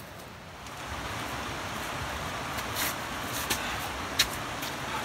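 Steady rush of river water, coming up about a second in, with a few sharp scuffs and clicks of shoes on rock as a hiker climbs over boulders.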